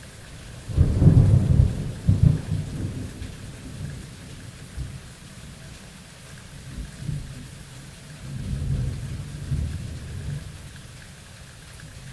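Thunderstorm: steady rain with a loud, deep thunder clap a second in that rumbles on for a few seconds, then a second, softer roll of thunder near the end.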